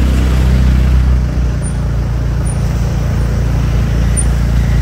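Motor scooter riding along a road: a steady low engine and road rumble, easing slightly about a second in.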